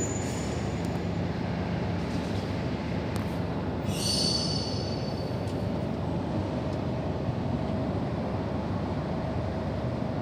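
Storm wind blowing steadily as a low rushing noise, with a brief high-pitched squeal about four seconds in.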